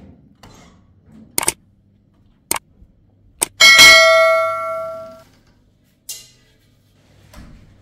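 A few sharp clicks and knocks as a door is opened, then a large round metal tray is struck once and rings with a clear, bell-like tone that fades over about a second and a half. A short brushing sound follows.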